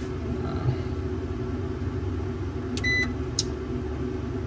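One short electronic beep from the keypad of an MPP Solar PIP LV2424 all-in-one solar inverter about three seconds in as a display button is pressed, followed by a light click, over a steady low hum.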